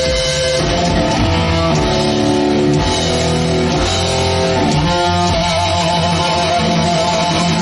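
Heavy metal band playing live: loud electric guitar riffing over bass guitar and drums.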